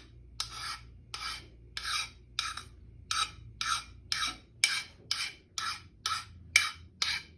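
Short, even abrasive strokes across the metal edge of a hand plane's sole, about two a second, each a brief rasping scrape. The sharp edge around the sole's perimeter is being broken so it won't dig into the wood.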